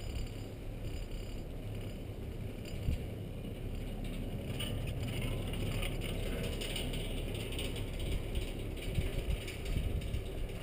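Chairlift running: mechanical clicking and rattling from the lift's cable and running gear, busiest in the middle of the stretch, over a low wind rumble on the microphone.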